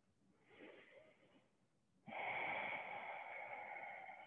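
A woman's breathing close to the microphone: a faint breath, then about two seconds in a longer, steady breath that slowly fades out.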